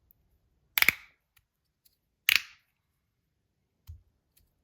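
Magnus Rail V2 slider fidget being slid and snapping into place with two loud, sharp clicks about a second and a half apart, the first a quick double click, then a faint knock. Tape fitted to damp it has made it only about 3 dB quieter.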